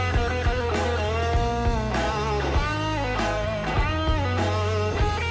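Rock music: an electric guitar plays bending lead lines over bass and a steady drum beat.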